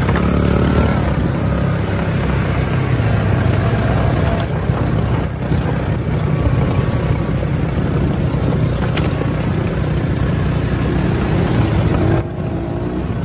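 ATV engines running steadily as quad bikes ride along a dirt trail, a little quieter near the end.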